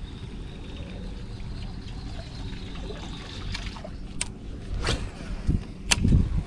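Water lapping and trickling around a fishing kayak, with a low steady rumble. A few sharp clicks and knocks come in the second half, the loudest near the end.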